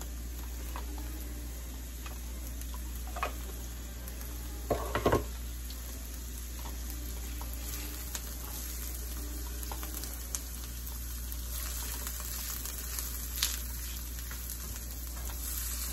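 Diced onion sizzling as it sautés in olive oil and butter in a skillet, stirred with a silicone spatula. The frying hiss holds steady, broken by a few light knocks against the pan; the loudest is a short knock about five seconds in.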